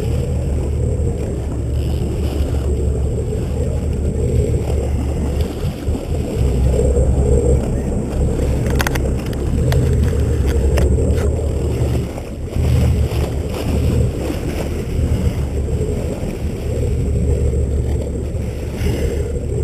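Boat engine running steadily, with water rushing along the hull. A few sharp clicks come about nine seconds in.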